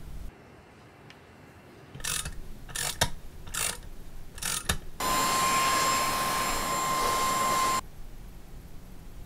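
Electric drill boring nozzle holes into a cast aluminium turbo compressor volute. A few short bursts of the drill come first, then about three seconds of steady running with a high whine, which stops sharply, leaving quieter handling sounds.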